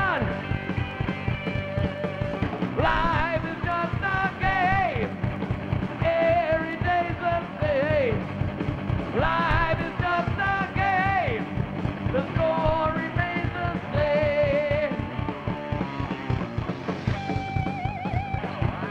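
Heavy metal band playing live: distorted electric guitar, bass guitar and drum kit, with a lead guitar line full of pitch bends and vibrato over steady drumming.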